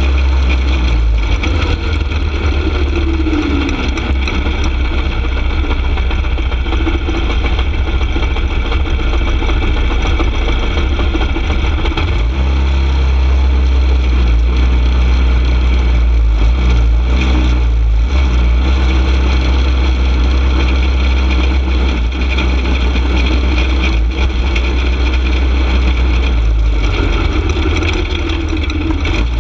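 Go-kart engine running at low speed, heard from a camera mounted on the kart, with a heavy low rumble throughout. Its pitch sags and rises a few times as the throttle changes, falling once a few seconds in and again near the end.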